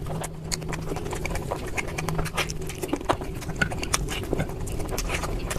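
Close-miked eating sounds: wet chewing and rapid, irregular lip-smacking clicks, over a steady low hum.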